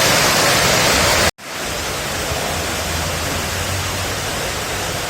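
Heavy rain with a loud, steady hiss. It cuts out for an instant a little over a second in, then comes back slightly quieter.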